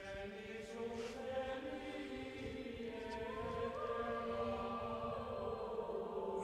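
Background music of sustained, chant-like choral voices holding long notes, with one note stepping up in pitch about three seconds in.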